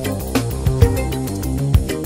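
Instrumental psychedelic rock music with a steady drum beat under a busy run of bass and melody notes.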